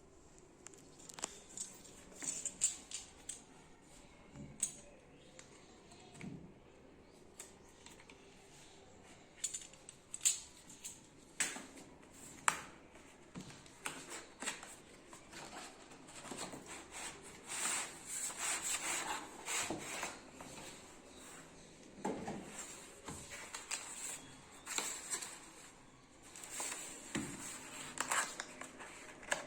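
A Dell keyboard's cardboard box being opened and unpacked by hand: scattered clicks, scrapes and rustling of cardboard and plastic packaging, busier in the second half.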